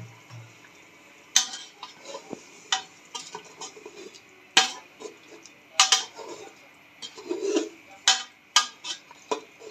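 A metal spoon stirring a pot of chicken and potato curry that has just had a glass of water added. The spoon clanks sharply against the pot about every second, at irregular intervals, with softer stirring sounds in between.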